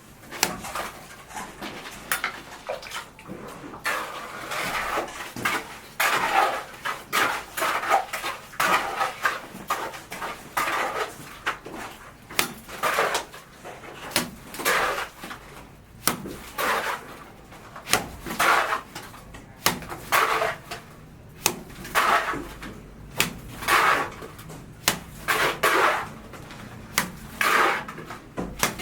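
Irregular clatter and scraping of metal tools in building work, a stroke every second or so.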